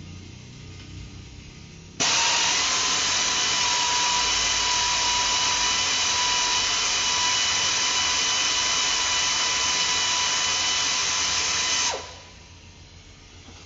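Electric power tool running steadily with a high whine for about ten seconds, switched on about two seconds in and cut off sharply near the end, used on the exhaust fasteners.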